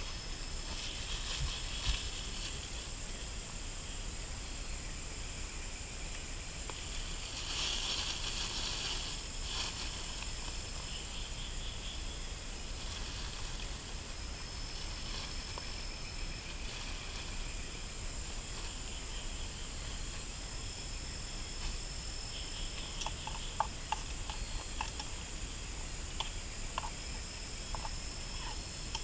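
Steady night chorus of jungle insects, high thin trilling tones, one of which starts and stops several times. Near the end, a few small clicks and knocks of a metal cooking pot being handled.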